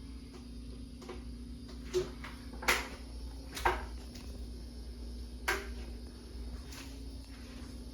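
Litex Windsong ceiling fan running slow on a failing capacitor, with a steady low motor hum. Four sharp, irregularly spaced clicks come between about two and five and a half seconds in.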